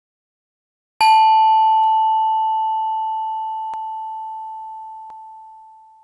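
A single bell-like chime struck once about a second in, ringing on one clear tone with a few fainter higher overtones and fading slowly over about five seconds.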